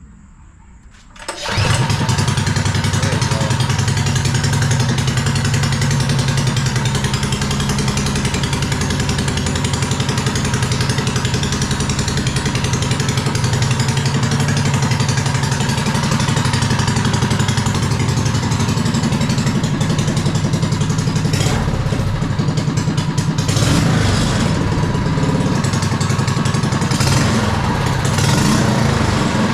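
Small 212cc single-cylinder go-kart engine, which cuts in suddenly about a second and a half in and then runs steadily and loudly.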